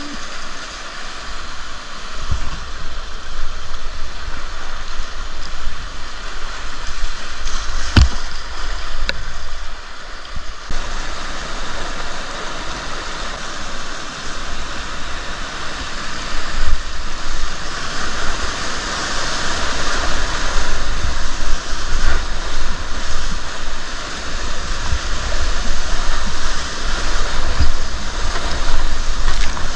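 Rushing river water, a loud, steady noise, with low thumps throughout and one sharp click about eight seconds in.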